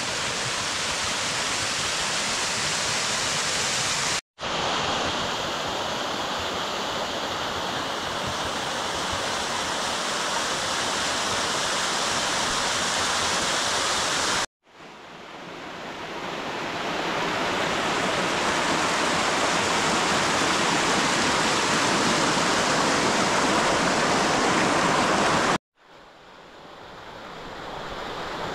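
Small waterfalls and a cascading mountain stream making a steady, full rush of falling water. The sound cuts out for a split second three times, and after the second and third cuts it fades back in.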